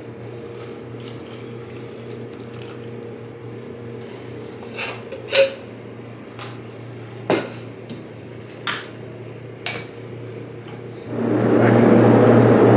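Metal paint cans and a mixing cup clinking and tapping as mixed paint is poured through a paper strainer into a spray-gun cup, a few sharp clinks over a steady low hum. About eleven seconds in, a loud steady rushing noise starts.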